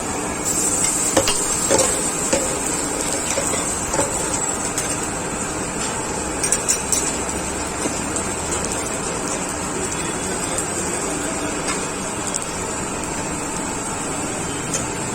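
Omelette frying on a hot street-stall griddle: steady sizzling, with metal utensils clinking and scraping against the pan a few times.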